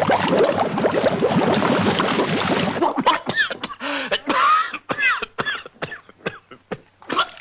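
Old cartoon sound effects: a dense clattering jumble for about three seconds, then a quick string of sharp knocks mixed with short squeaky swoops in pitch.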